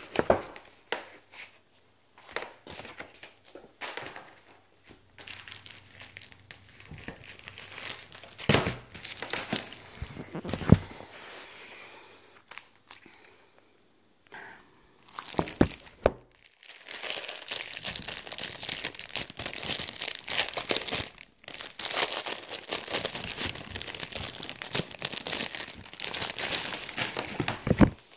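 Mail packaging for sticker kits being opened by hand, crinkling and tearing in irregular rustles and snaps. There is a short pause about halfway, then more continuous crinkling to the end.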